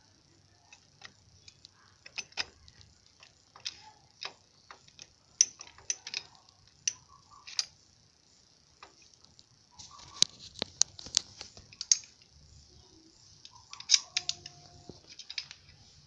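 Irregular sharp metallic clicks and clinks of hand tools on a Bajaj Platina 125 engine's clutch assembly as its nut is tightened, with busier flurries of clicks about ten seconds in and again near the end.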